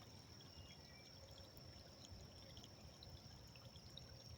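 Near silence, with a faint steady trickle of creek water running.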